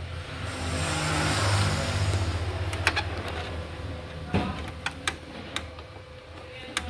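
Epson L1110 inkjet printer's motors whirring for a few seconds as it powers up and drives the feed rollers to push out a jammed sheet of paper, followed by several sharp clicks.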